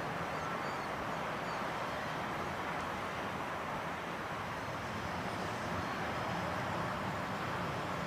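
Boeing 727-200F freighter climbing out after takeoff, heard from far off as a steady, even jet noise from its three Pratt & Whitney JT8D engines.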